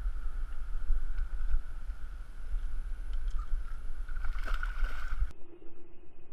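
Wind rumbling on the camera microphone, with a short run of splashes from a hooked carp thrashing at the surface about four seconds in. The rumble cuts off suddenly near the end.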